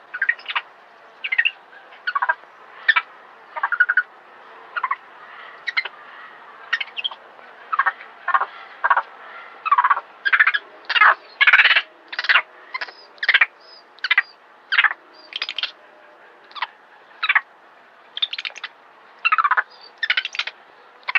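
A monkey's repeated short, shrill calls, one or two a second and coming faster in the middle: distress cries from a monkey caught by a snake.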